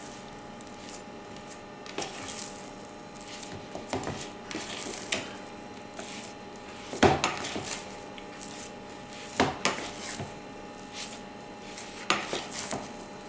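Metal spoon scraping and knocking against a plastic mixing bowl as sticky sourdough dough is pulled from the edges to the middle in a first stretch-and-fold, with soft squishing of the dough. Several short knocks, the loudest about seven and nine and a half seconds in.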